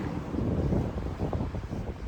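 Wind buffeting the microphone: a low, gusty rumble that swells and falls irregularly.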